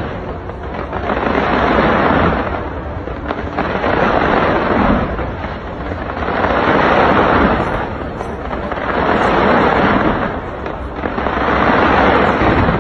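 Fireworks going off in repeated volleys: about five dense swells of crackling, each building and fading, roughly every two and a half seconds.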